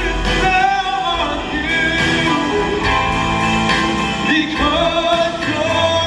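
Live stage show music with singing.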